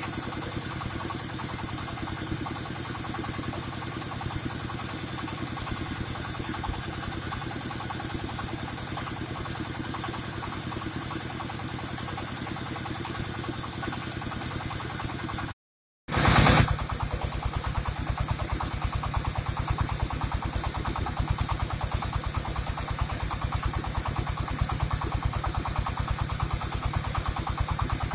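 Mobile rice milling machine running steadily, its engine and milling units making a continuous mechanical drone with a rapid low pulse. About halfway through the sound cuts out for a moment. It comes back after a short loud burst, louder and with a stronger low throb.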